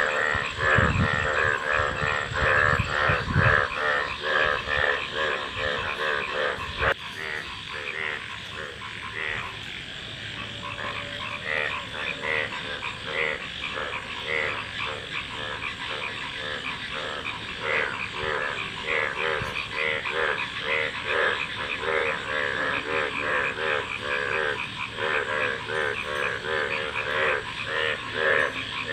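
A chorus of many frogs calling at once, rapid short croaks overlapping in a dense, pulsing pattern, thinning a little for a few seconds after the first third. A few low thumps come in the first few seconds.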